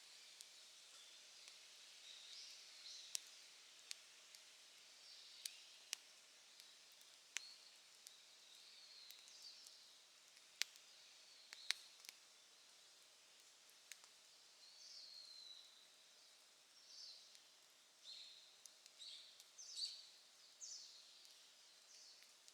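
Faint wood fire crackling, with scattered sharp single pops, most of them in the first half. Birds give short chirps now and then, more often near the end.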